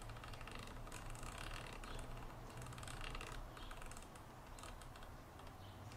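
Faint, quick, irregular clicking from the scroll wheel and keys of an RC radio transmitter as they are worked to adjust a setting, over a low steady room hum.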